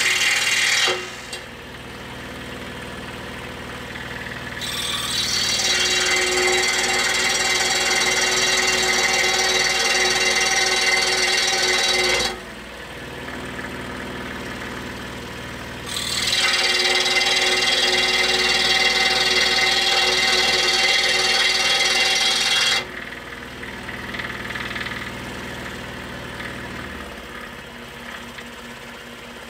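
Scroll saw cutting hard maple. There are three stretches of loud cutting: one ending about a second in, then two of about seven or eight seconds each. Between cuts the saw keeps running more quietly.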